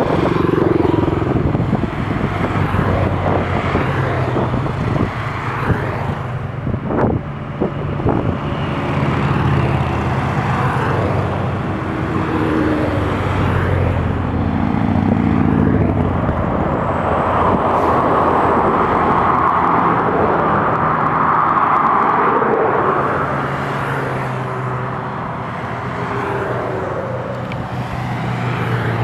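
A string of motorcycles riding past one after another, their engines swelling and fading as each goes by.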